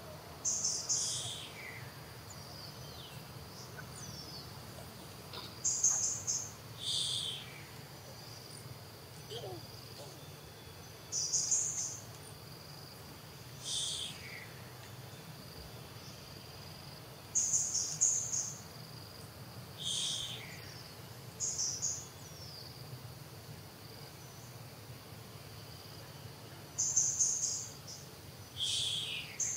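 A bird calling in short repeated phrases about every five to six seconds, each a high burst followed by a lower, falling note, over a steady high insect drone.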